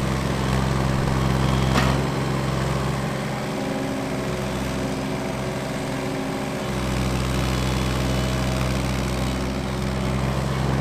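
Case CX17C mini-excavator's diesel engine running steadily as it digs. Its note changes for a few seconds in the middle, and there is a short knock about two seconds in.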